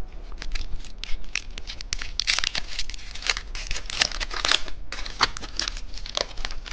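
Candy wrapper crinkling and tearing as it is opened by hand, in a run of dense irregular crackles and rustles.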